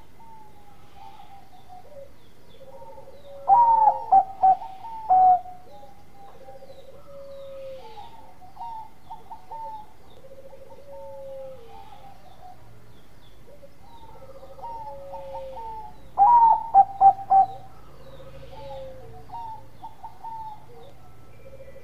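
Bangkok-bred perkutut (zebra dove) cooing its staccato song. Two loud bursts of quick coo notes come about 3.5 s and 16 s in, with softer coo phrases repeating every second or two between them.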